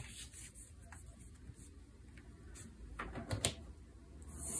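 Tarot cards being dealt from the deck onto a table: a few soft taps and slides of card on card, with a small cluster of sharper clicks about three seconds in.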